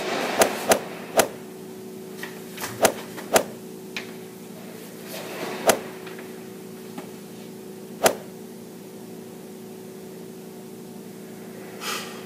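A steady low hum underneath a handful of scattered sharp knocks on a hard tiled floor, about seven over the first eight seconds, each echoing briefly. A short rustle comes near the end.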